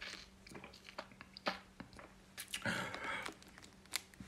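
Quiet sniffling and mouth noises from a person whose nose is running after eating an extremely hot chili-coated nut, with a few short sniffs, the longest about two and a half seconds in, among scattered small clicks.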